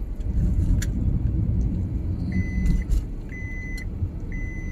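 Car driving along, with a low road and engine rumble heard inside the cabin and a few light clicks. In the second half an electronic beep sounds three times, each about half a second long and about a second apart.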